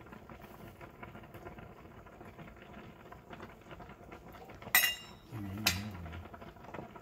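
Two sharp clinks of kitchenware about a second apart near the end, over a faint steady hiss, with a brief low hum between them.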